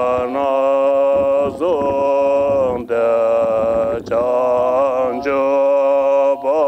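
Two Tibetan Buddhist monks chanting a prayer together in long, steady held tones, breaking for breath every second or so.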